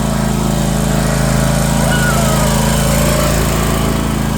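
Riding lawn mower engine running steadily at a constant speed, close to the microphone.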